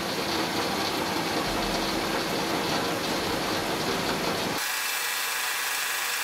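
Metal lathe running with a carbide boring bar taking a very light cut inside a milling spindle's Morse taper 2 bore, a steady even machining noise. About four and a half seconds in, the lower part of the sound drops away abruptly, leaving a thinner, higher hiss.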